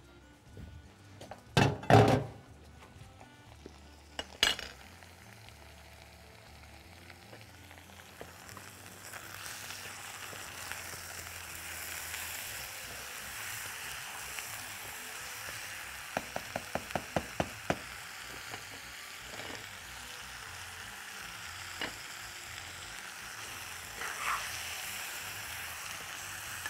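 Chunks of camel meat searing with onions in a granite-coated pot, sizzling and being stirred with a metal spoon. The sizzle grows louder after the first several seconds. A few loud knocks come near the start, and a quick run of about eight taps comes around the middle.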